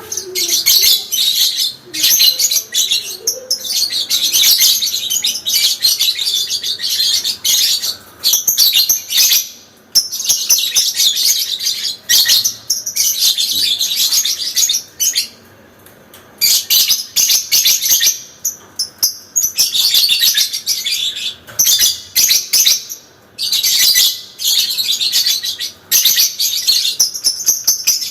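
Parblue lovebird giving its long 'ngekek' chatter: rapid, high-pitched shrill chattering in sustained bouts of a few seconds each, broken by short pauses.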